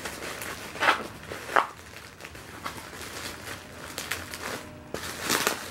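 Plastic packaging rustling and crinkling in several short bursts as a wrapped item is worked loose by hand.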